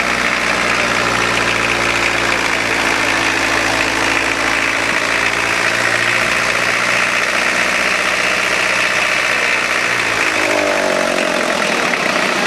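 Engine running on a test stand, steady and loud; about ten seconds in its pitch falls as the revs drop.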